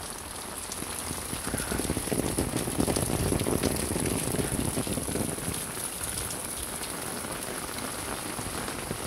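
Heavy rain falling steadily on a wet paved lane, a dense patter and splash of drops. It swells louder for a few seconds starting about a second and a half in, then settles back.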